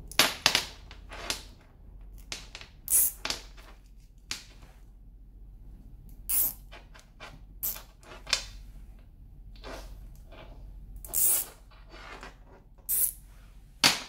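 A dozen or so short, sharp metal scrapes and clicks at irregular intervals, as a steel pick works cam bearings and their seals out of the bearing holders.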